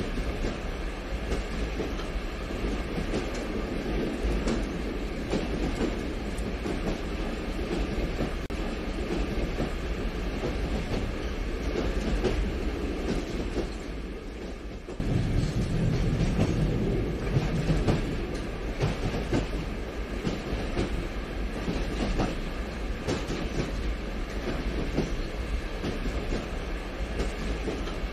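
HO scale model passenger train rolling past, its wheels clicking over the rail joints over a steady rushing noise. The sound steps up abruptly about halfway through and turns deeper and louder.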